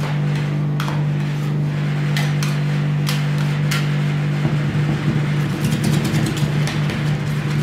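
Metal spatulas scraping and tapping on the steel freezing plate of a rolled-ice-cream machine, over a steady low machine hum. From about halfway the strokes come quicker as the spatulas chop the mix.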